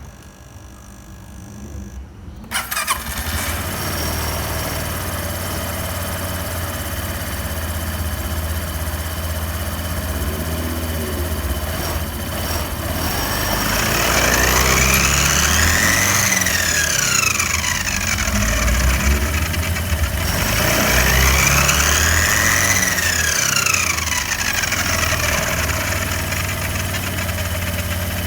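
Suzuki Address V125 scooter's single-cylinder four-stroke engine starting and idling, then revved twice, the pitch rising and falling each time. The uploader reports an abnormal noise from its CVT drive train.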